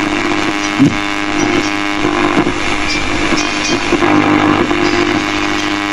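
Sony CD radio cassette player's radio giving out a steady buzzing hum and hiss with no programme audible, with one brief click about a second in.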